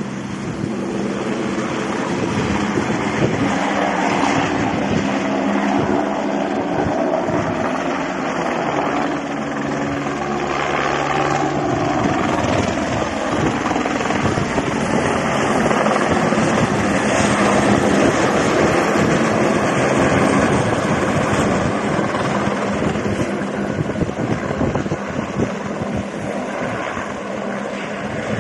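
Firefighting helicopter carrying a slung water bucket flying past, its rotor and engine making a steady drone.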